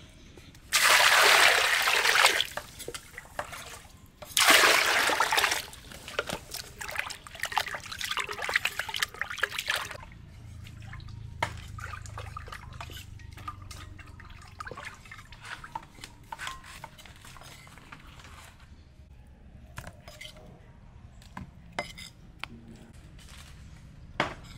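Water poured twice into a glazed clay pot holding carrots, then splashing and sloshing as the carrots are washed by hand in it, fading after about ten seconds to faint scattered clicks of handling.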